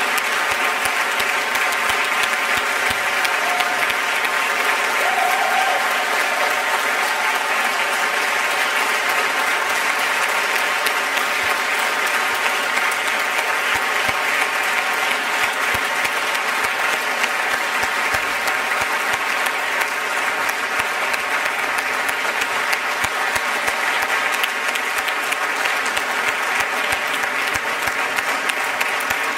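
Concert audience applauding steadily, a dense and even clapping.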